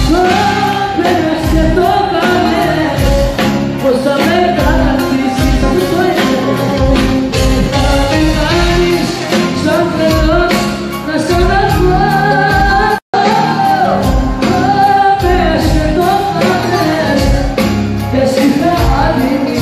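A female singer singing live into an amplified microphone over a band with a steady drum beat, filling a large hall. The sound cuts out completely for an instant about two-thirds of the way through.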